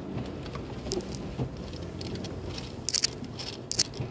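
Car rolling slowly over packed snow, heard from inside the cabin: a steady low rumble with irregular crackles and sharp clicks from the tyres.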